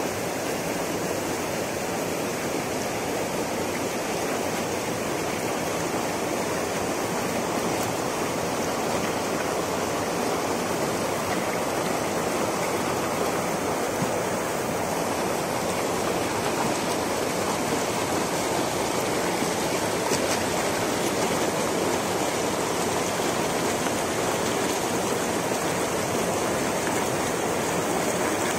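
Fast shallow stream rushing and splashing over rocks in a small whitewater cascade: a steady, even rush of water.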